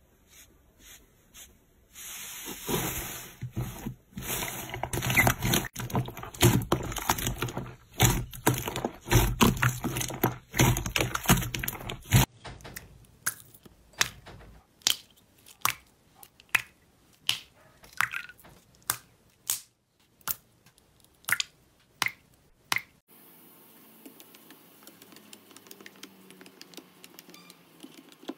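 Hands squishing and poking slime: a dense run of crackling, squelching squishes, then short wet pops about two a second, then faint soft poking near the end.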